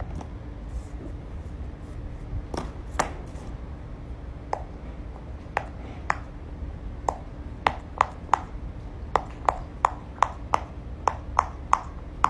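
Silicone pop-it fidget toy bubbles being pushed in one by one with a fingertip, each giving a short, crisp pop. A few scattered pops at first, then a steady run of about three a second from about halfway through.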